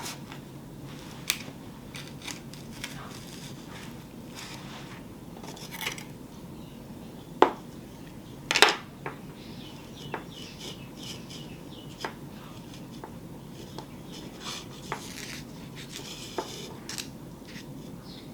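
Scattered small clicks and knocks of objects being picked up and set down on a work surface during a craft repair, with two sharper clacks about seven and a half and eight and a half seconds in.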